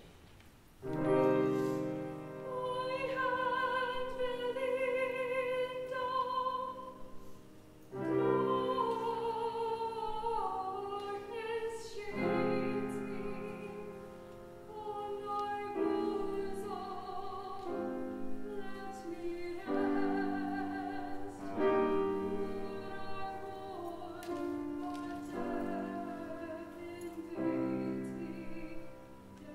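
Classical soprano voice singing with vibrato, accompanied by a grand piano. The piano starts about a second in, the voice enters a moment later, and the singing runs on in phrases.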